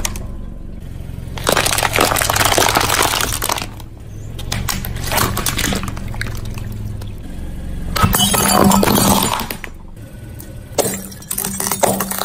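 A car tyre slowly rolling over and crushing a series of plastic objects, including slime-filled cups and brittle painted toys, which crack and crunch in several separate bursts.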